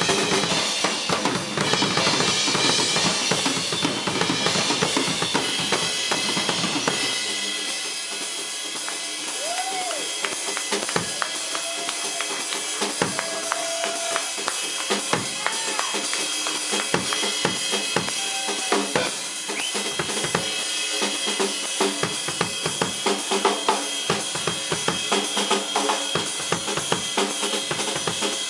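Drum kit played solo live. It starts dense, with a cymbal wash over bass drum and snare, then drops after about seven seconds to sparser, lighter strokes without the bass drum.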